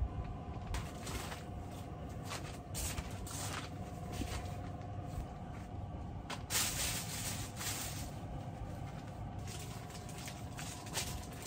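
Plastic packaging crinkling and rustling in irregular bursts as a snack packet and bags are handled, loudest about six and a half seconds in, over a steady low hum.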